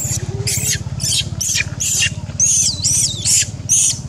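Young long-tailed macaque squealing over and over: short high-pitched cries, about two or three a second, several rising and falling in pitch. A steady low hum runs underneath.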